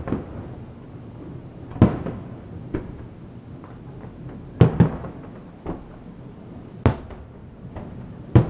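Aerial fireworks shells bursting: about eight booms at irregular intervals, a few in quick pairs, each trailing off in a short rumble.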